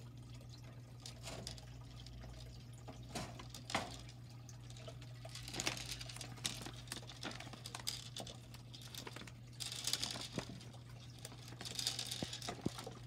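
Water moving and trickling in a turtle tank over a steady low hum, with scattered light knocks and rustles, busier about halfway through and near the end.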